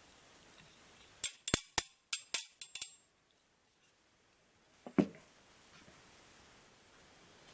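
A quick run of about eight sharp metallic clicks over a second and a half from the folding parts of a stainless-steel BBQ multitool being handled. About five seconds in comes a single duller knock.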